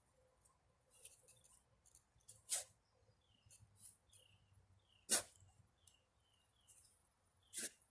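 A shovel striking into garden soil three times, about two and a half seconds apart, during digging for potatoes. Faint high chirps in the background.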